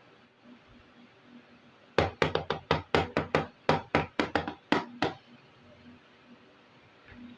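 A quick run of about fifteen sharp, small taps and clicks over some three seconds, about five a second, from small hard plastic pieces of a miniature toy kitchen set being handled and knocked together.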